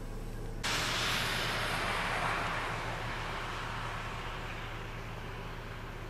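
Steady low hum of a vehicle idling. About half a second in, a sudden loud rush of hiss cuts in and slowly fades over the following seconds.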